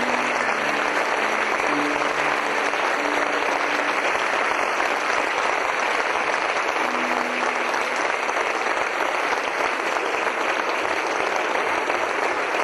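Sustained applause from a crowd at a steady level, with faint musical notes underneath in the first few seconds and briefly again about seven seconds in.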